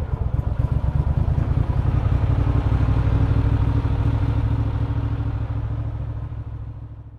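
An engine running steadily at an even speed, then fading away over the last second or two.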